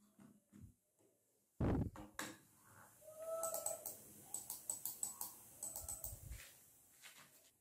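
Logitech MK275 wireless mouse buttons clicking in a quick run, about four clicks a second, after a few soft keyboard key presses and a single thump about one and a half seconds in.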